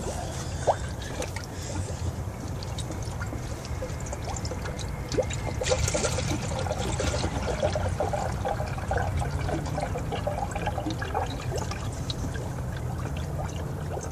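Antifreeze pouring and trickling into a no-spill coolant funnel on the radiator as the cooling system is refilled after a water pump gasket repair, over a steady low rumble.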